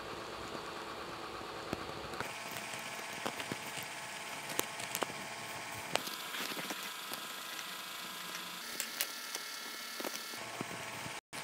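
Faint, scattered taps and soft rustles from fingertips patting and smoothing serum onto the face, over a steady low hiss. The sound cuts out for an instant near the end.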